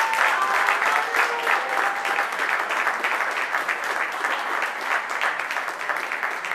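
Spectators clapping steadily, with a couple of long whistles in the first two seconds.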